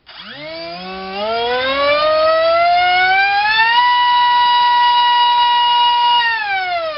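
Multistar Viking 2208 2600kV brushless drone-racing motor spinning a TGS 5x5 propeller on a 4-cell battery in a thrust test. Its whine climbs steadily as the throttle is opened over about four seconds, holds at one pitch at full throttle, then falls as it is throttled back near the end.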